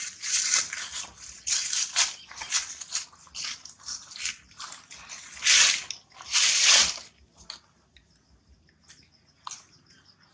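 Dry leaf litter rustling and crunching in irregular bursts, the two loudest, each about half a second long, near the middle. After that it dies away, leaving a faint steady high tone.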